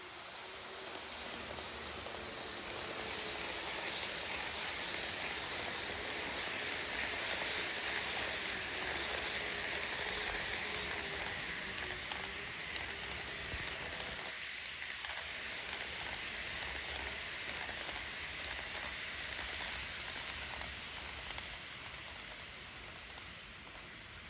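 HO scale model trains rolling past on sectional track: a steady rushing of small metal wheels on the rails with light clicks over the rail joints, building over the first few seconds and fading near the end.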